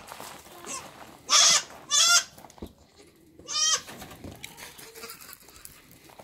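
Goats bleating: three short loud calls in the first four seconds, the last two with a quavering tremble.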